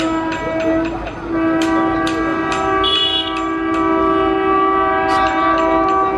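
Electric locomotive's horn sounding a long blast as the train approaches, its tone breaking off briefly about a second in and then held again, shifting between two pitches. Scattered sharp clicks sound over it.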